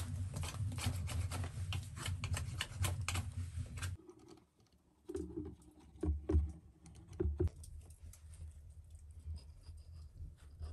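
Wood fire crackling in a stone fireplace, a dense run of sharp pops over a low rumble that cuts off suddenly about four seconds in. After a short pause come scattered clicks and knocks of hand work.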